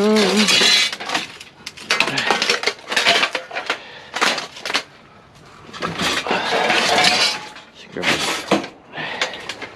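Repeated clattering crashes of scrap metal and junk being thrown onto a pile, about seven separate bursts with short pauses between them.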